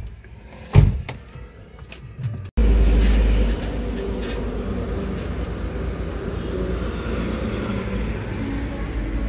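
Two sharp knocks in the first second, then a sudden break, then the steady rumble of a car driving, heard from inside the cabin.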